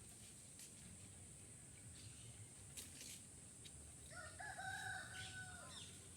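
A faint, drawn-out crow-like bird call lasting about a second and a half, starting about four seconds in and dropping off at its end, with a few faint chirps and clicks around it.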